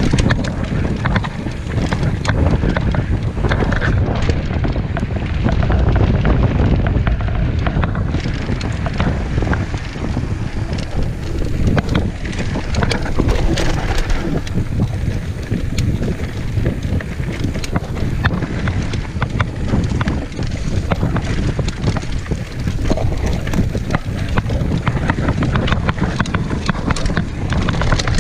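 Wind buffeting the microphone of a camera on a moving mountain bike on a dirt trail, a steady low rumble, mixed with tyre roll over the ground and frequent rattling clicks and knocks from the bike over bumps.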